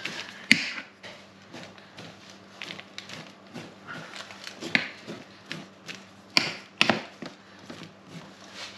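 A blade scoring raw wholemeal and rye sourdough loaves on baking trays: a run of short, quick scratching strokes, with a few sharp knocks about half a second in and twice later on. A faint steady low hum runs underneath.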